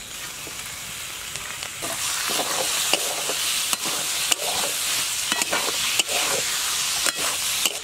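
Raw chopped chicken sizzling in hot mustard oil and fried spice paste in a metal kadai, stirred with a metal spatula that clicks and scrapes against the pan. The sizzle gets louder about two seconds in, as the chicken goes into the pan.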